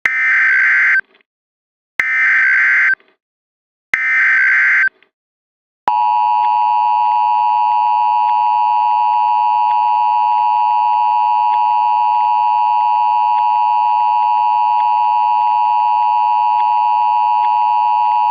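Emergency Alert System alert tones: three short bursts of SAME header data, each about a second long and about two seconds apart, then the steady two-tone attention signal starting about six seconds in. The sequence marks the start of a broadcast tsunami warning.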